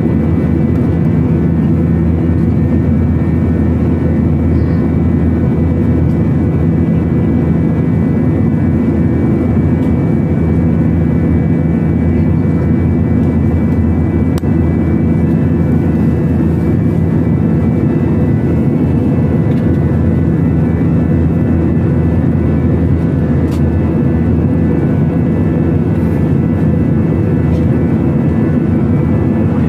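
Jet airliner cabin noise in cruise, heard inside the cabin at a window seat beside the engine: a loud, constant rumble with a few faint steady high tones above it.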